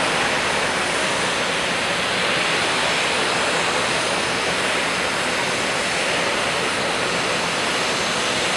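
Steady, even jet roar of a Boeing 787 airliner touching down and rolling out along the runway.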